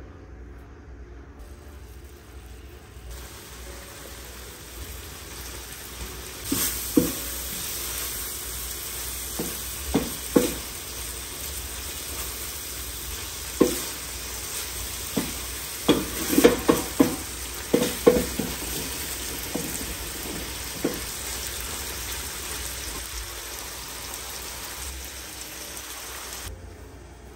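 Minced meat sizzling and frying in a stainless steel pan, the sizzle swelling a few seconds in. A wooden spatula stirs it, knocking and scraping against the pan in quick clusters through the middle of the stretch.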